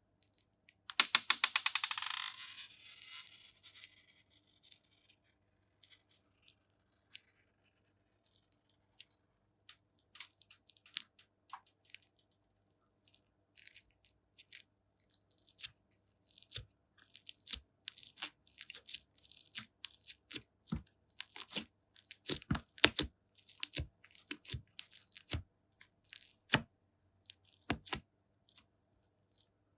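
Slime being mixed with cream and pressed by hand, making scattered sticky clicks and pops that come thicker toward the end. About a second in there is a short, dense burst of rapid crackling.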